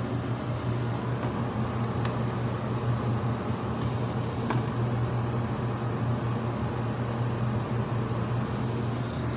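Compact portable electric clothes dryer running on a test run, its motor humming steadily as the drum spins fast, with a couple of faint ticks.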